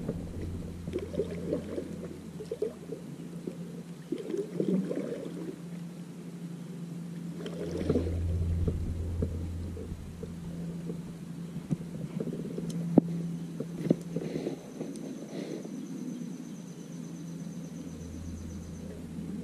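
Fishing kayak under way on the water: a low steady hum that drops out twice, with scattered knocks, clicks and rustles against the boat.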